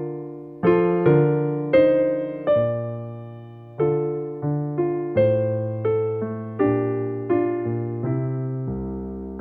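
Electric piano or keyboard playing a slow sequence of sustained chords, each struck and left to fade, about one every half to one second.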